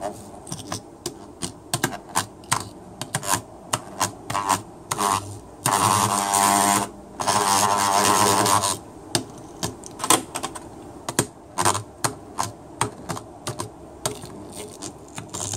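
An automatic transmission shift solenoid rattles and chatters against the top of an electric demagnetizer as it is rolled around on it. A little past the middle come two steady buzzes of about a second and a half each. The solenoid is being demagnetized to loosen the fine metal debris held inside it.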